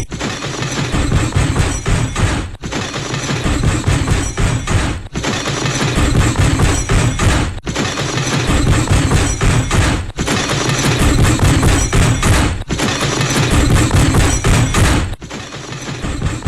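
Edited MGM elephant smash cartoon crash sound effect, repeated over and over as a loud, dense clatter. The repeats come about every two and a half seconds, with a brief dropout between each, and the last one near the end is quieter.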